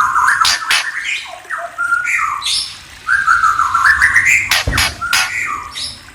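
A murai (Copsychus songbird) singing: a run of varied, gliding whistled phrases broken by sharp clicking notes, with a short pause about three seconds in.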